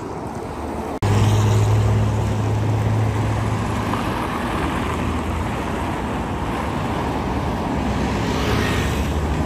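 Wind-like noise for the first second, then a cut to road traffic: a vehicle engine running steadily with a low hum under general traffic noise.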